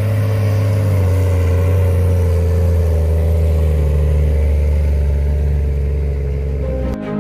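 Large six-cylinder diesel tractor engine running steadily in the field, with a deep, even low note. It cuts off abruptly near the end.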